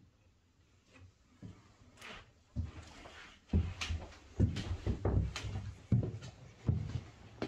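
A run of irregular knocks and thuds, starting a couple of seconds in, about one or two a second and some in quick pairs.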